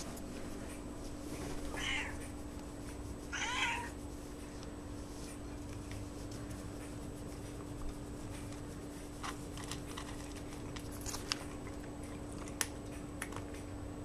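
Domestic cat giving two short meows about a second and a half apart, the second longer with a wavering pitch. Later come a few sharp, separate clicks as the cat eats dry kibble from a bowl.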